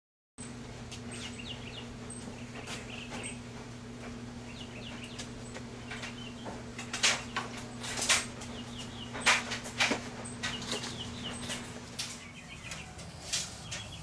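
Several loud knocks and clunks of a heavy Victory Vision touring motorcycle being hauled upright by hand off its side, over birds chirping and a steady low hum that stops near the end.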